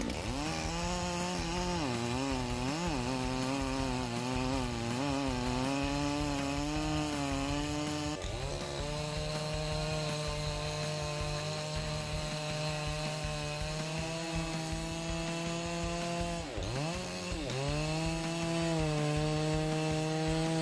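Dolmar PS-9010 two-stroke chainsaw running at full throttle while its bar cuts through a thick log. The engine note wavers under load for the first several seconds, then holds steady. It dips sharply and climbs back twice, about 8 and 17 seconds in.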